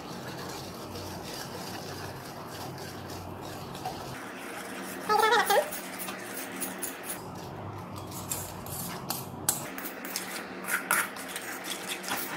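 A metal spoon clinking and scraping against a metal kadai while stirring ghee and gram-flour batter into hot sugar syrup, with many short clicks from about seven seconds in over a steady low hum. A brief voice about five seconds in.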